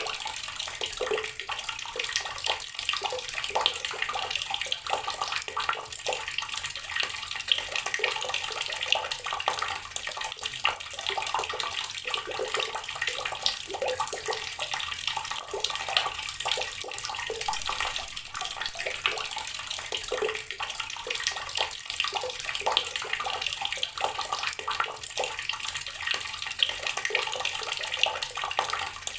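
Water pouring steadily from a tap and splashing onto rocks, a continuous, even run of dense small splashes.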